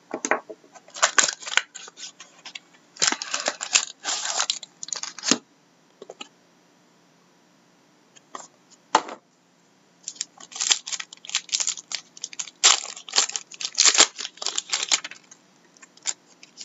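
Trading-card pack wrapper and cardboard crinkling and tearing as a pack is opened and the cards are handled, in irregular bursts of crackle with pauses between them and a single sharp click about nine seconds in.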